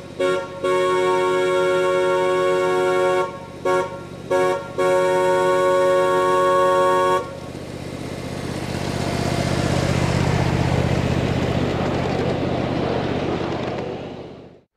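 A miniature ride-on locomotive's chord horn sounding several notes together in a series of short and long blasts, the last held until about seven seconds in. Then the train's wheels rumble past on the track, loudest about ten seconds in, and fade out near the end.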